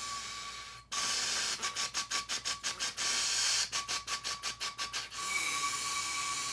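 Breath hissing through the straw of a Breath Builder breathing trainer, with a faint steady whistle. About a second in the air stops briefly, then it comes in quick tongued puffs, about five a second, following the articulation of an étude. Near the end it turns to one long steady breath, the closing long inhale.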